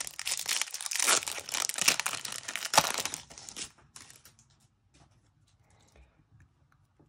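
A foil trading-card booster pack being torn open and crinkled by hand, with dense crackling for about three and a half seconds. After that come only a few faint clicks.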